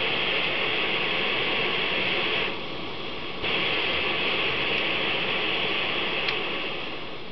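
Optimus 199 pressurized stove burner running on white gas with a steady, loud hiss; it goes briefly quieter for about a second midway, then comes back, and eases off slightly near the end.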